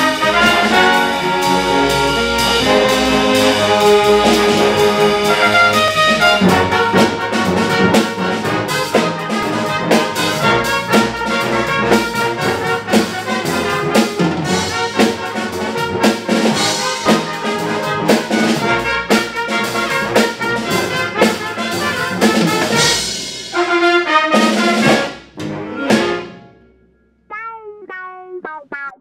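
High school big band playing jazz: brass with trombones to the fore, saxophones, piano and drum kit. The loud ensemble playing breaks off a few seconds before the end, leaving quieter, thinner sound.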